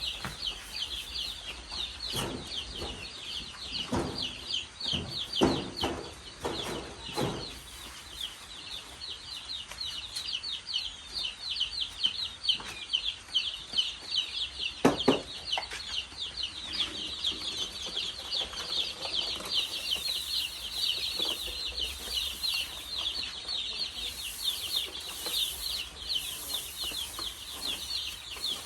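A group of chicks peeping nonstop in a dense chorus of short, high, falling peeps. A few short, lower sounds stand out in the first several seconds, with one louder one about halfway.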